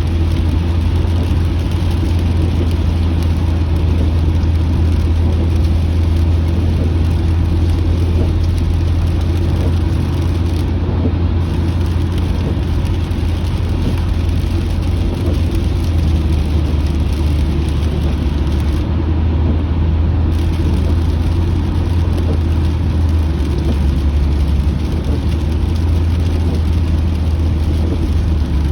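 Steady low road drone inside a moving car's cabin, with an even hiss of rain and wet road over it.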